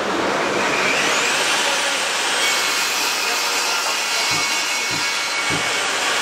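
Bosch GTS 10 XC table saw running and crosscutting a wooden board. The pitch rises about a second in as the blade takes the cut, then holds steady. Three faint low knocks come near the end.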